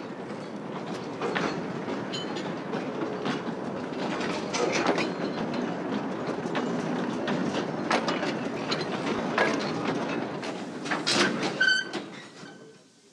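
60 cm narrow-gauge train's wagons rolling along the track, wheels clacking over the rail joints. A brief wheel squeal comes near the end, then the sound fades away.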